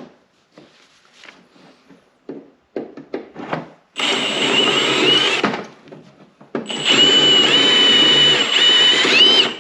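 Power drill drilling out a rivet that holds a rubber side-panel latch to a snowmobile frame, in two runs of a few seconds each after some handling clicks; the pitch dips briefly near the end of the second run. The rivet spins in its hole as the drill bites.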